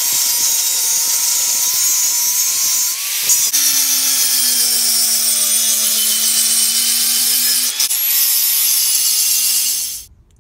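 Angle grinder with a cutting wheel cutting and grinding a softened steel farrier's rasp into a kitchen-knife profile: a steady, hissing grind of the disc on steel over the motor's whine. It changes sharply twice and stops abruptly near the end.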